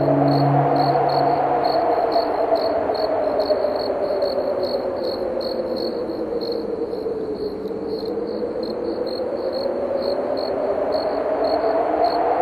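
Crickets chirping in an even pulse, about three chirps a second, over wind whose whistle slowly rises and falls in pitch. The low hum of a church bell dies away in the first second or two.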